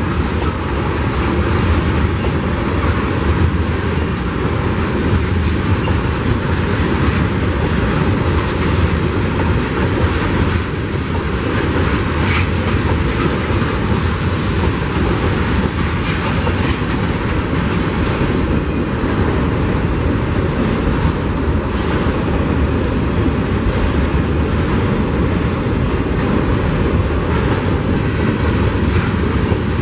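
Freight train of tank cars rolling past close by: a steady rumble of steel wheels on rail, with a few brief sharp clicks from the wheels.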